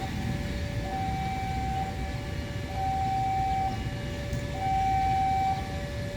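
Railway level-crossing warning alarm sounding a steady two-tone hi-lo pattern, a high and a low tone taking turns about once a second, over a low rumble. It warns that a train is approaching.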